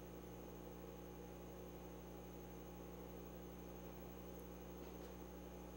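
Steady electrical mains hum with a faint hiss and nothing else: near silence.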